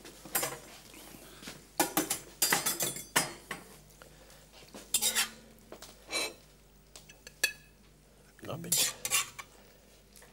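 A metal serving spoon scraping and clinking against a wok and porcelain plates as stir-fried vegetables are dished out: a run of irregular short clatters and scrapes.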